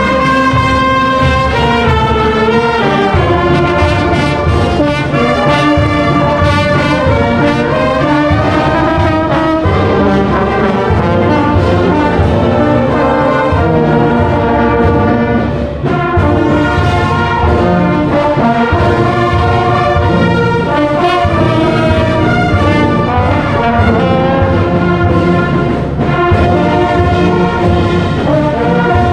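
A brass band playing a tune, with several parts in harmony, steady throughout.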